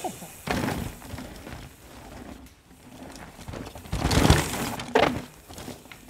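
Mountain bike tyres crunching and skidding over a dirt and leaf-litter trail, with the bike clattering over roots and bumps in irregular bursts. The loudest burst comes about four seconds in.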